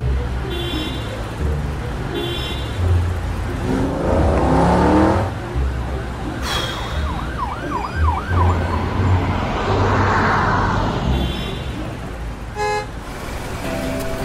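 Road traffic with car engines rumbling, a rising tone about four seconds in, and a short siren-like warble partway through. A brief bright chime sounds near the end.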